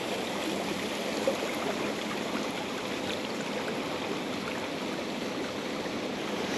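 River water rushing steadily past: a constant, even rush with no break.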